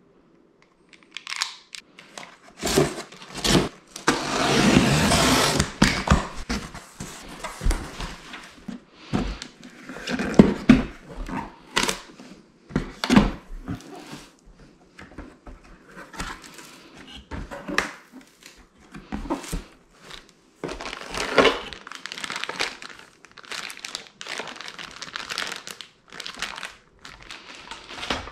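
Cardboard packaging being opened by hand. A utility knife slits the packing tape of a shipping box, then cardboard flaps and an inner box are pulled, slid and knocked on a stone countertop, with packaging crinkling and rustling. The sound is a run of sharp knocks and scrapes.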